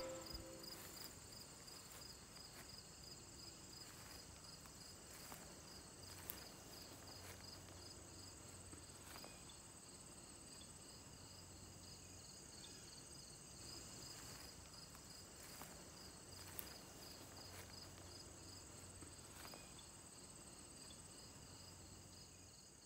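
Faint chorus of chirping insects: a fast, even pulsing trill with a steadier, higher buzz above it, and a few faint clicks.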